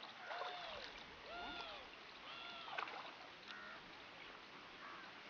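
A wooden river boat being poled along, with water moving against the hull. Faint repeated calls that rise and fall in pitch come about once a second.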